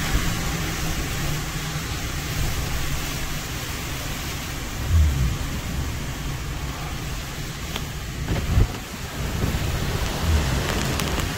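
Hurricane wind and heavy rain making a steady roar, with three louder low surges of gusting about five, eight and a half and ten seconds in.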